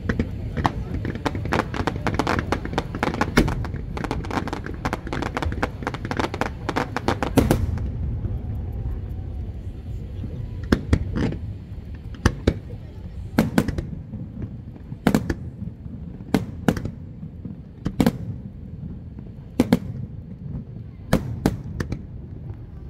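Fireworks display: a dense run of rapid crackling bangs for the first seven seconds or so, then single sharp booms about one a second.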